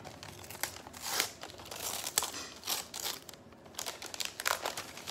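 Patterned wrapping paper on a gift crinkling and tearing as it is opened by hand, in a string of short, uneven rustles.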